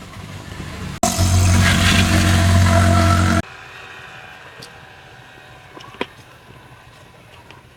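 High-pressure washer running with its spray hissing, a steady low motor hum under it, for about two and a half seconds, starting and stopping abruptly. A single sharp click follows a few seconds later.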